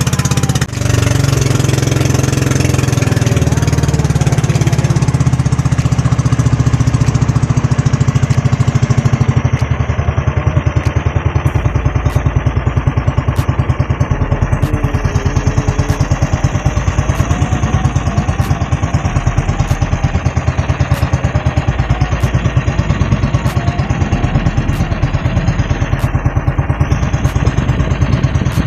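Outrigger fishing boat's engine running steadily under way. About ten seconds in, the sound turns lower and its even beat becomes more distinct as the boat nears the shore.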